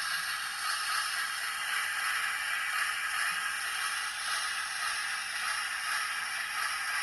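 Steady steam hiss from a model steam locomotive's QSI sound decoder, played through the model's small speaker, with no chuffing beat.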